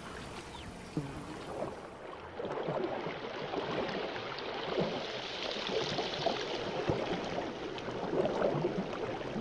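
Swamp water with a faint trickle. About two seconds in, it gives way to muffled underwater bubbling and gurgling full of small crackles, which grows louder.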